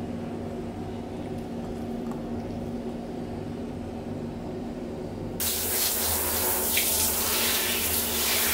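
A low steady hum, then about five seconds in a handheld shower head comes on and water sprays steadily onto a small dog's coat as it is bathed.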